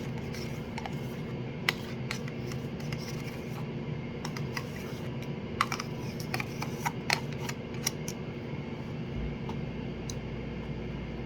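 Small clicks, taps and scrapes of kitchen containers and utensils being handled, with a handful of sharp ticks spread through the middle, over a steady low hum.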